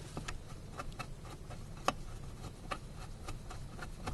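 Scattered light clicks and taps of a cover being handled and fitted back on over the fuel pump, with one sharper click about two seconds in, over a low steady hum.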